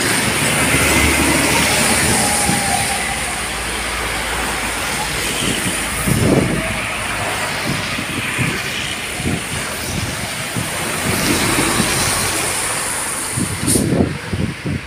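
Heavy trucks and motorcycles passing on a wet road: engines running and tyres hissing on the wet asphalt, loudest in the first few seconds as a bulk tanker truck goes by close. A sharp click comes near the end.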